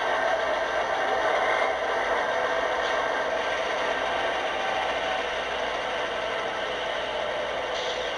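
O scale MTH Premier Dash 8 model diesel locomotive's onboard speaker playing a steady diesel engine sound. The sound comes from an older Proto-Sound 2.0 narrow-nose Dash 8 sound file loaded into the model.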